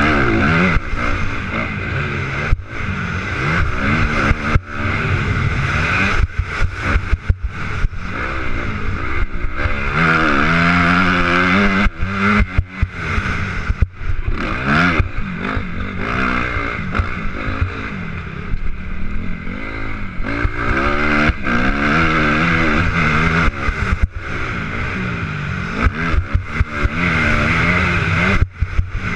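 Motocross bike engine revving hard as it is ridden round a dirt track. The pitch climbs and falls again and again through the gears and corners, with many short cuts where the throttle is shut.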